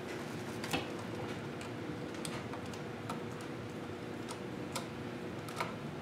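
A few faint, scattered clicks and ticks of a duplex wall receptacle and its wires being handled at the screw terminals while a wire is taken off, over a faint steady hum.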